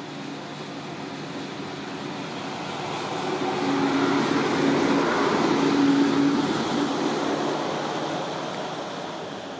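A motor vehicle passing by: engine hum and road noise swell slowly to a peak about five to six seconds in, then fade away.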